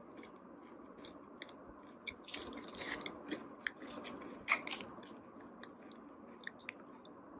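A person chewing a mouthful of Kit Kat Zebra, a dark and white chocolate bar with very little wafer: faint, soft mouth clicks and chewing noises, busiest in the middle, with one louder snap about four and a half seconds in.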